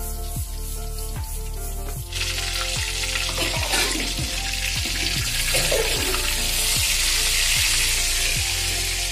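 A piece of fish sizzling as it fries in hot oil in a wok. The sizzle starts abruptly about two seconds in, over background music with a steady beat.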